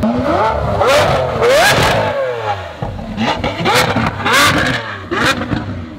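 Lamborghini Aventador's V12 revving twice as it drives past, the pitch rising and falling each time, with a few sharp cracks among the revs.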